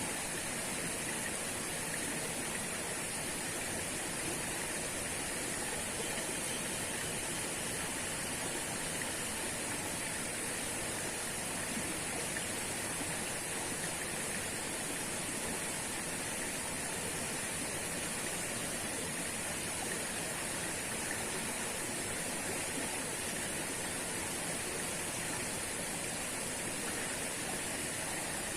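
Waterfall pouring and water rushing steadily, a constant even hiss with no breaks or changes.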